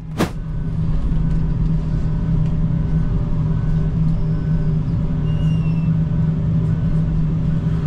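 John Deere 135P excavator's diesel engine running steadily under load, heard from inside the cab as the machine pushes dirt with its dozer blade.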